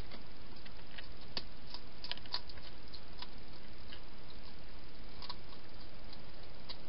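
Wild hedgehog eating at a bowl inside a plastic feeding box: irregular small crunching clicks, bunched about two seconds in and again near five seconds, over a steady hiss.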